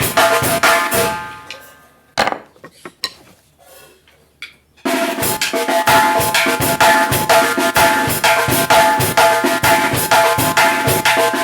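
Glezz 14×8-inch snare drum (tarola) with a Coreelo 2H head, played in fast, dense strokes with a ringing tone. About a second in the playing dies away, a few soft single strokes follow, and fast playing starts again a little before halfway through.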